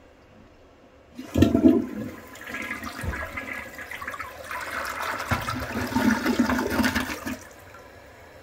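Flush of a 1970–72 Crane Neuday forward-trap toilet: a sudden rush of water about a second in, then swirling and draining for about six seconds, a short flush, before it falls to a faint steady hiss.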